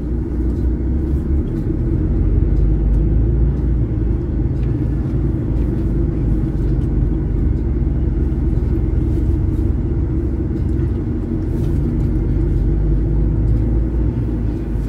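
Loaded heavy truck's diesel engine running low and steady as it creeps through potholes, heard from inside the cab, with a few faint knocks from the truck jolting in the holes.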